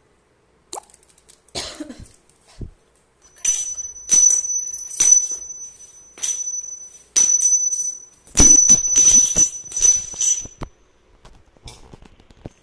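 Small brass percussion, a puja bell or hand cymbals, struck again and again in irregular bursts, giving clear high metallic ringing, with a few soft knocks in the first seconds.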